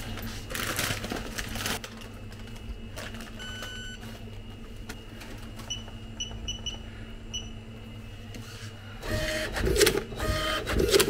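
Self-service checkout card-payment terminal beeping, with one electronic tone then a quick run of short beeps a couple of seconds later, over a steady electrical hum. A louder stretch of clatter comes in the last two seconds.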